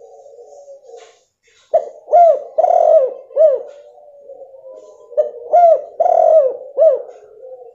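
Female spotted dove (tekukur) cooing in two phrases about three seconds apart. Each phrase is four short coos that rise and fall, with a longer coo among them. This is the female call used to coax a silent male into cooing.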